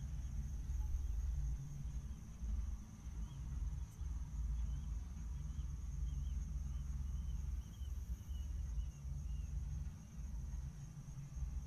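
Outdoor ambience: a steady high-pitched insect drone and a string of faint bird chirps in the middle, over a low, uneven rumble.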